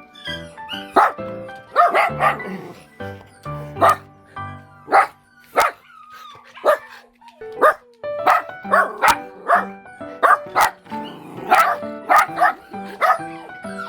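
Dogs barking repeatedly in short, sharp barks, many in quick succession, over background music.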